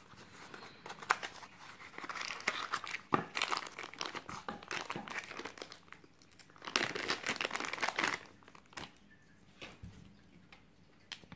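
Packaging handled by hand: a small cardboard box opened and a clear plastic bag crinkled and unwrapped, in two spells of crackly rustling, followed by a few light clicks as the small metal cane toy is handled.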